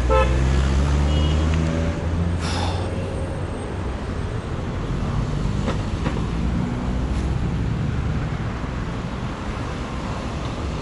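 Street traffic: a heavy vehicle's engine drones close by for the first two seconds, with a short hiss about two and a half seconds in, then a steady rumble of passing traffic.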